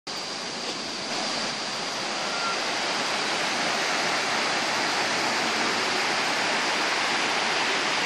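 Mae Sa Waterfall's tiered cascade rushing steadily over rocks.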